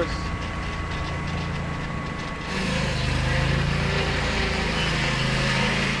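Small gasoline engine of a portable sawmill running steadily, growing louder and fuller about two and a half seconds in.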